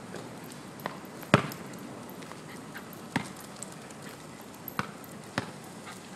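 A basketball bouncing on an outdoor hard court: several sharp bounces at uneven intervals, the loudest a little over a second in.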